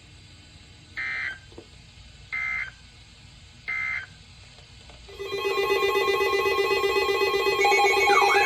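Three short data bursts of the Emergency Alert System end-of-message code, with about a second between them. About five seconds in, a loud electronic alert tone starts: a steady low tone with higher tones over it, and a warbling tone joins near the end.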